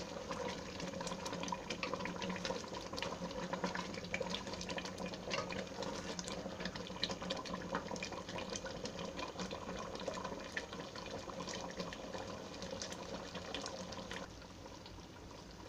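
Mango pieces simmering in sugar syrup in a pan, stirred with a wooden spatula: bubbling and sloshing with many light clicks of the spatula against the pan. The stirring stops near the end, leaving quieter bubbling.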